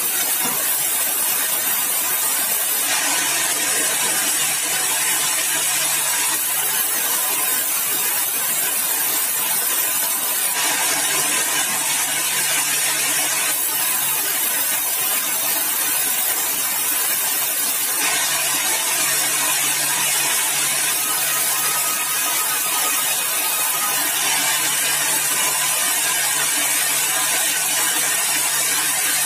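Sawmill running and sawing yellow balau (bengkirai) timber: a steady, loud hiss over a low hum, changing abruptly every few seconds.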